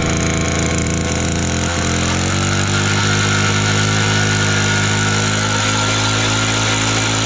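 Petrol ice auger with a 200 mm screw running while drilling a hole through lake ice. Its engine note dips and recovers about two seconds in, then holds steady.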